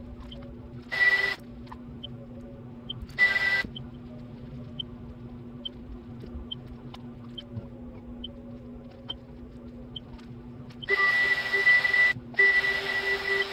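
Small handheld butane torch hissing with a thin whistle, fired in two short bursts and then held on from near the end with a brief break, as heat-shrink tubing is shrunk onto the motor wires.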